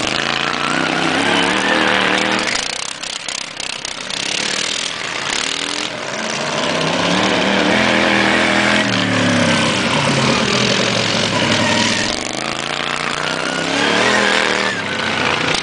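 Engines of modified racing lawn mowers running hard, their pitch rising and falling as the riders rev up and back off through the turns, with two short lulls in the engine sound.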